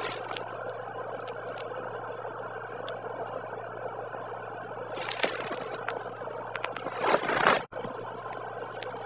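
Steady background hum with a few faint clicks and two short rustling noises, about five seconds in and again around seven seconds in.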